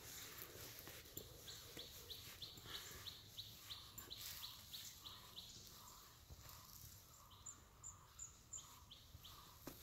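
Faint birdsong: a bird repeats a short, high chirp about three times a second for several seconds. A few higher chirps come later, and the repeated note returns near the end.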